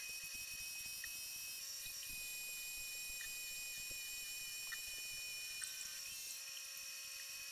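Homemade metal lathe running, turning a steel shaft: a steady high-pitched whine with a few faint ticks.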